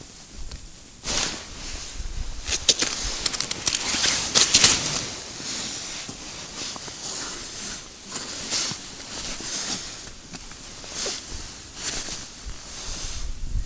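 Rustling and crackling handling noise close to the microphone, most likely a winter jacket's fabric moving as the hands work. It comes in irregular bursts, densest from about one to five seconds in, then sparser.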